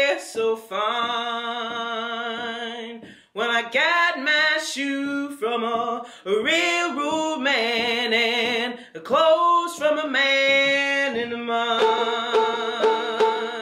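A woman singing long notes with a slight waver, accompanied by a picked open-back banjo. Her line breaks off briefly a few times, and near the end the banjo picking becomes steady and prominent.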